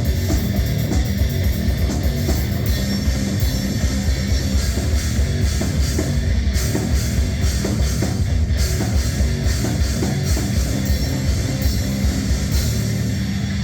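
Loud rock music with a drum kit and guitar, played through a stage PA sound system.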